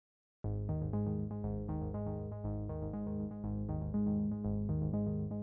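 Background synthesizer music with a steady beat and repeating keyboard notes, starting about half a second in.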